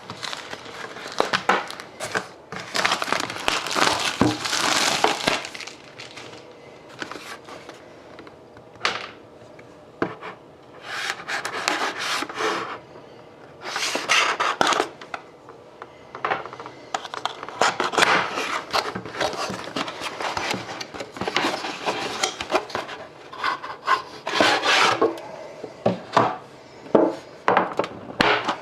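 A 2011-12 Upper Deck The Cup hockey card box being handled and opened by hand: irregular rubbing and scraping of the packaging in bursts, with short quieter lulls between.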